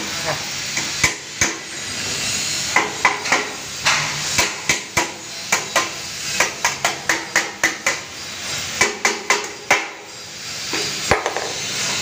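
Claw hammer striking a sheet-metal cable tray, dozens of sharp metallic blows in quick irregular runs, with a short pause about ten seconds in, as the tray is shaped into a bend.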